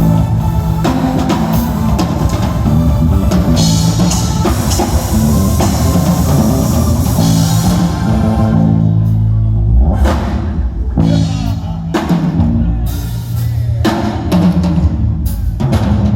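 Live band music driven by a drum kit, with kick, snare and sustained bass notes. About eight seconds in, the cymbals and higher instruments drop away, leaving mostly drums and bass.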